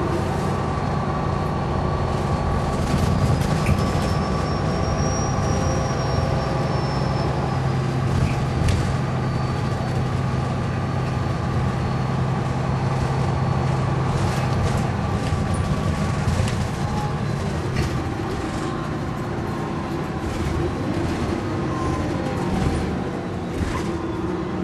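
MAN A22 / Wright Meridian bus's diesel engine and ZF automatic gearbox heard from inside the saloon while the bus drives, a steady drone with a faint high whine that rises and then falls. The engine note strengthens and then eases off about two-thirds of the way through.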